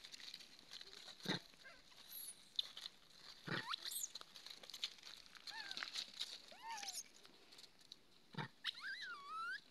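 Baby macaques giving short, high squeaky cries that drop in pitch, several around the middle, then a longer wavering cry near the end, with a few short scuffs in between.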